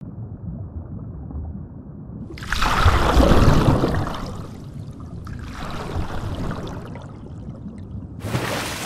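Paddle strokes pulling through water, splashing and bubbling. The sound is muffled at first. A loud stroke comes about two and a half seconds in, a weaker one at about five seconds, and another near the end.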